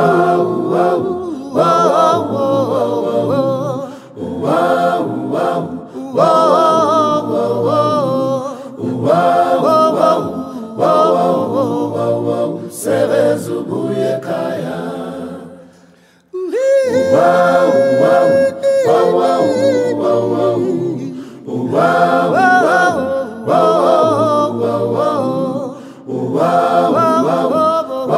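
A cappella choir singing a song in isiZulu, in phrases of a second or two with short breaths between them and a brief pause about halfway through.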